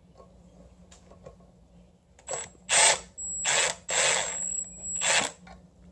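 Compact power ratchet with a socket, run in five short bursts about two seconds in, tightening a bolt on a starter support bracket. Each burst has a high whine.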